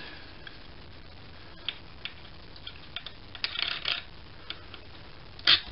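Scattered light clicks and taps of small brass engine parts being handled and worked by hand, with a cluster of them just before the halfway mark and one louder, sharper click near the end.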